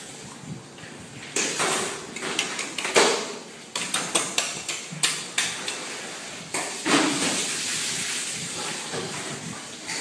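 Knife and fish meat knocking and scraping on a stainless steel cutting table as a large fish is cut up. The knocks and clatter come irregularly, with a quick run of clicks in the middle. A louder knock comes about seven seconds in, followed by a few seconds of steady noise.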